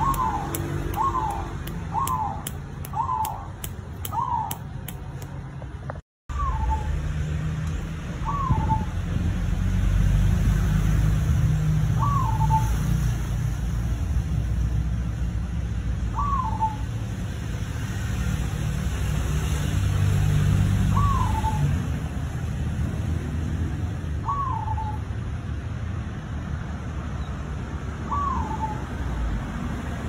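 Zebra dove (black cemani perkutut from Bali) giving short single coos, each a quick rise and fall in pitch, about once a second at first, then every three to four seconds after a brief break about six seconds in, over a steady low rumble.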